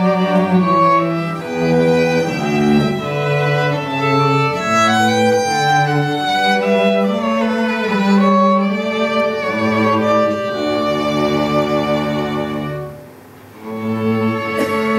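Live string trio of cello, violin and a third bowed string instrument playing a piece together, one held note after another. The music breaks off briefly about thirteen seconds in, then picks up again.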